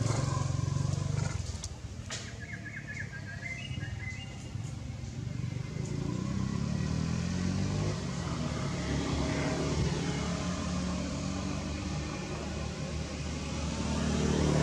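Motor vehicle engines from passing road traffic, rising and falling in pitch as the vehicles go by.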